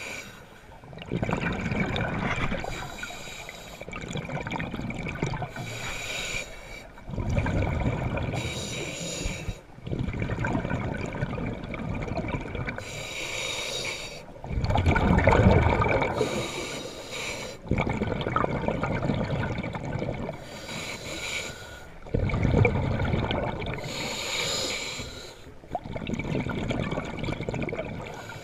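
A scuba diver breathing through a regulator, recorded underwater: slow, regular cycles of a hissing inhale followed by a burst of bubbling on each exhale, about one breath every six seconds.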